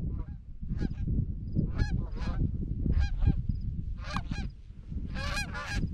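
Geese honking, a string of short honks that come faster and louder in the last couple of seconds as a flock closes in, over a steady low rumble.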